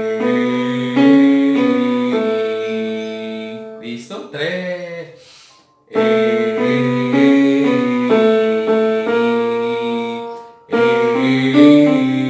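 Electronic keyboard in a piano voice playing the same short phrase of held notes three times, with short pauses between them. In the first pause, about four seconds in, there is a brief gliding vocal sound.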